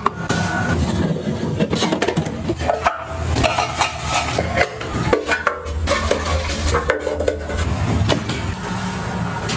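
Small hard objects being handled and set down on a surface: a run of irregular clicks, taps and knocks, with rubbing and scraping between them.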